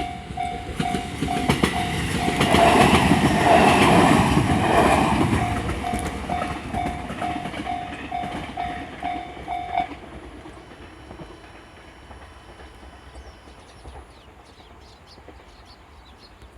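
Japanese level-crossing warning bell ringing a steady electronic ding-ding, about two and a half rings a second, as a train passes through the crossing. The train is loudest about three to five seconds in. The bell stops about ten seconds in, and the sound fades to a quiet background.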